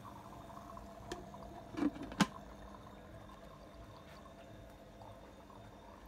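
DIY protein skimmer running, a steady low watery gurgle of air and water with a faint steady hum. Three short knocks come between one and two and a half seconds in, the last the loudest.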